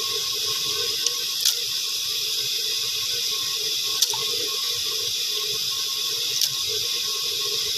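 A steady hiss with a few faint ticks as sliced onion and garlic pieces drop into a pot of chickpeas in water.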